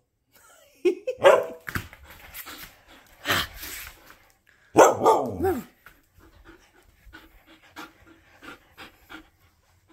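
Siberian husky vocalising in short bursts during excited play: a short bark-like call about a second in, a noisy burst, and a louder call about five seconds in that falls in pitch. Softer, quickly repeated panting follows.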